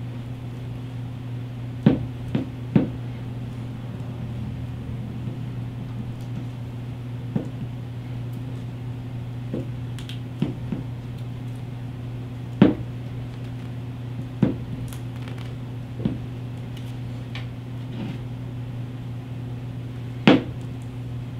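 Tape being pulled off a roll and wrapped around a wire bundle, heard as scattered short crackles and taps, the loudest about two seconds in, midway and near the end. A steady low hum runs underneath.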